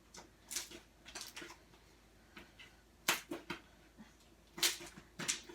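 Sticky homemade slime being squeezed and pulled in the hands, giving a few irregular wet clicks and squelches.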